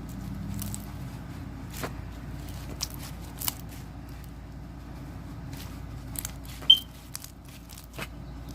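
Clear foam slime with foam beads being squished and stretched by hand, giving scattered small crackles and pops over a steady low hum. There is one sharp, high squeak about two-thirds of the way through.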